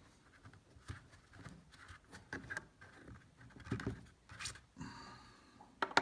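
Hands handling a paper booklet and a hard plastic carrying case: light rustling with scattered taps and small clicks, and a sharper click just before the end.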